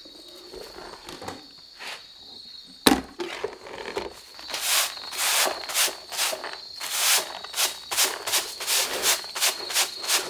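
Japanese straw broom sweeping scattered cat litter across a tatami mat toward a dustpan in quick, repeated brushing strokes, beginning a few seconds in. A single sharp knock comes just before the sweeping starts.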